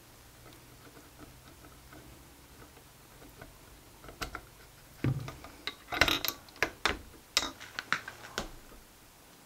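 Small aluminium engine parts handled on a workbench while a cylinder is fitted to a miniature V6 engine: faint handling at first, then a run of sharp metal clicks and knocks in the second half, one duller knock among them.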